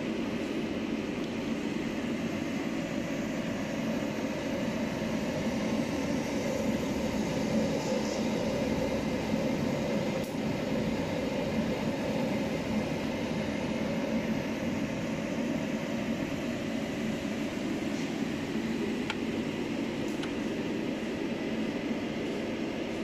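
Noritsu QSF-V50 minilab film processor running, with a steady mechanical hum from its drive turning the rack gears and shafts in the processing tanks.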